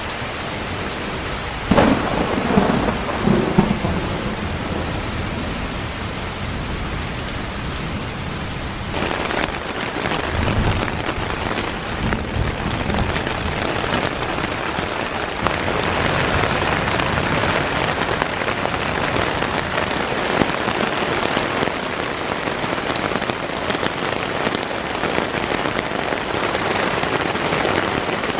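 Rain pouring steadily on a tent's fabric, with thunder rumbling about two seconds in and a fainter rumble around ten seconds in.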